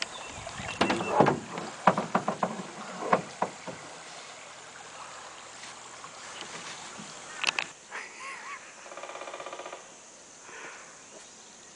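A run of knocks and clatters from canoe paddling, the paddle and gear hitting the canoe's hull, in the first few seconds, then another single knock. Near the end comes a short, rapidly pulsed buzzing animal call.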